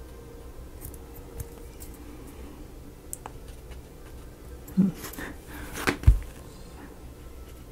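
Small clicks and taps of tiny miniature-kit pieces being handled on a work table, with a few sharper clicks and a louder knock about six seconds in.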